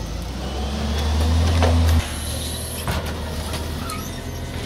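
Natural-gas garbage truck's engine running low and heavy, its hum swelling for about two seconds and then dropping off suddenly, followed by a steadier idle with a few sharp knocks.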